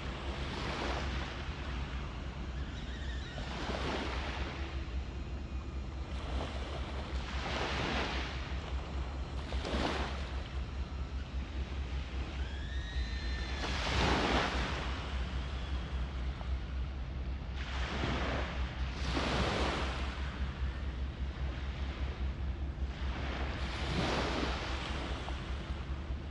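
Small waves lapping and breaking on a sandy shore, a surge every few seconds, over a steady low rumble. A brief high whistle-like call sounds about halfway through.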